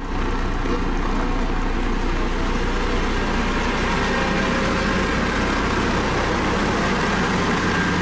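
Dynapac CC522 tandem asphalt roller's diesel engine running steadily as the machine rolls over fresh asphalt.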